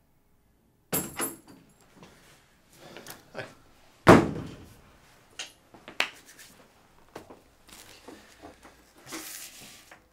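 Office door: a sharp click as it opens about a second in, then a loud slam shut about four seconds in, the loudest sound. Smaller knocks and rustles follow, with papers shuffled on a desk near the end.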